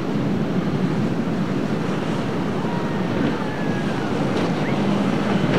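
Surf breaking and wind buffeting the microphone, with a small boat's outboard motor running underneath. Its steady hum comes through more clearly near the end.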